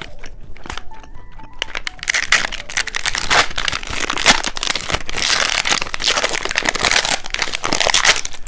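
Plastic snack wrapper crinkling and rustling as it is handled and opened: faint background music at first, then from about two seconds in a dense, crackly crinkling that lasts until near the end.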